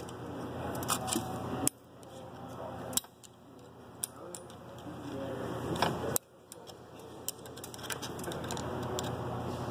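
Sharp metallic clicks and scrapes at irregular intervals as a screwdriver works a steel snap ring into its groove around a truck transmission's input shaft.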